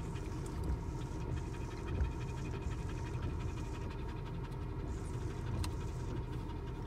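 A dog panting close by inside a moving vehicle's cabin, over a steady low rumble from the vehicle on a gravel road.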